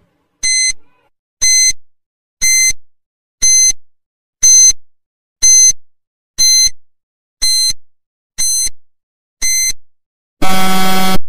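Countdown timer sound effect: ten short, high beeps, one a second, each fading quickly. Near the end comes a louder, lower buzzer of about a second, marking time up.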